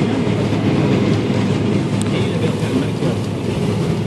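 John Deere combine harvester running with a steady, unbroken machine drone.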